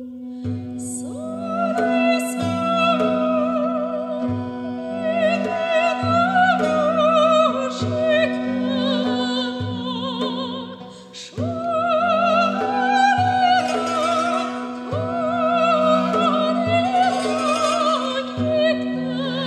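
A woman sings an Armenian folk song with a wide vibrato over a steady duduk drone. Plucked oud and tar and a frame drum keep a slow beat beneath her. The ensemble drops back briefly about two-thirds of the way through, then comes back in.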